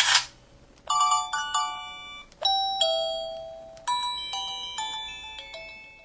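HS7000 mobile phone playing its sound previews: a short hissy camera-shutter sound (the default shutter sound), then a chiming alert melody of about ten bell-like notes, each struck and fading away, a text-message alert tone.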